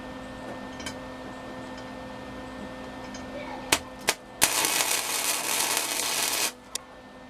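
Lincoln Pro-Core 125 flux-core wire welder: two short arc strikes about half a second apart, then a steady hissing arc for about two seconds that cuts off sharply, followed by one brief click. A steady hum runs underneath.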